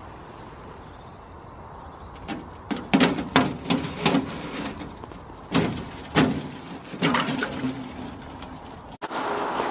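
Thin pond ice being tapped and pushed with a gloved finger, giving a series of sharp knocks and cracks for several seconds.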